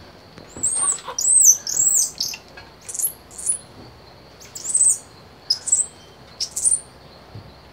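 Squirrel monkeys giving many short, high-pitched chirps and squeaks, one after another and sometimes overlapping.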